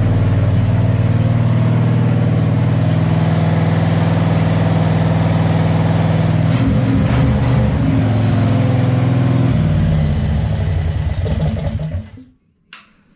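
A go-kart's 670 cc V-twin engine running at a steady speed. Its note shifts about six and a half seconds in, drops about nine and a half seconds in, and cuts off about twelve seconds in as the engine is shut down.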